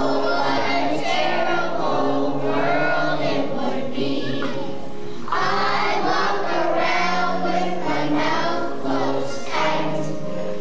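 A group of kindergarten children singing a song together in chorus.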